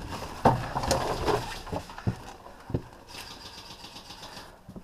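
Several sharp knocks and bumps, the loudest about half a second in, then a rapid, even mechanical rattle for about a second near the end, typical of a burst from an electric airsoft rifle.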